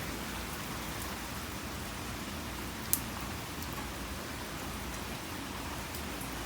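Steady, even hiss like light rain falling, with one sharp click about three seconds in.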